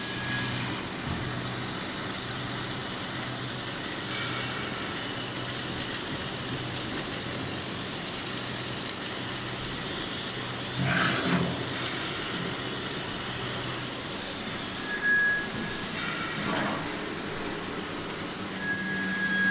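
Submerged arc welding equipment running steadily, a constant hum and hiss. There are two brief louder noises about halfway and three-quarters through, and a steady high tone sets in near the end.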